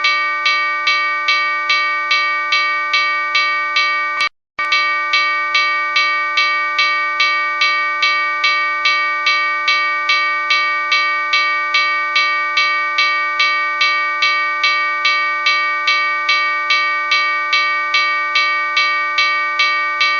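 Locomotive bell ringing over and over at about two to three strikes a second, its overtones sustaining between strikes. The sound cuts out briefly about four seconds in.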